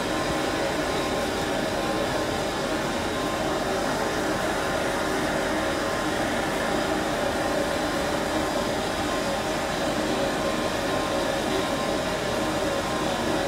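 Norfolk & Western 611, a J-class 4-8-4 steam locomotive, idling at a standstill: a steady hiss and hum with a constant tone running through it.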